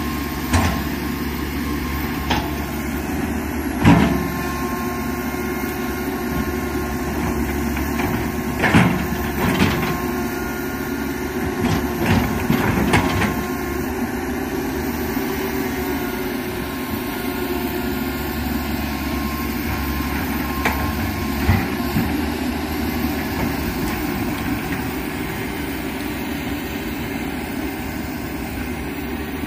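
Komatsu PC195 hydraulic excavator's diesel engine running steadily while it works, with scattered sharp knocks, the loudest about four seconds in.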